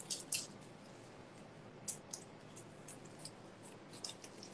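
Faint scattered clicks and crackles of a small knife peeling the papery skin off garlic cloves.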